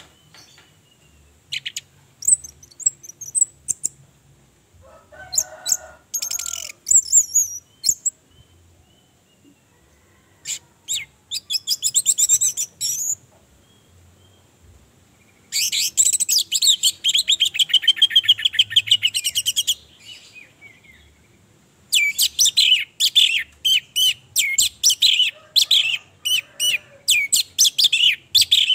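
Orange-headed thrush singing in bouts of fast, varied, high-pitched phrases separated by short pauses. The longest bouts, each several seconds of rapid notes, come in the middle and near the end.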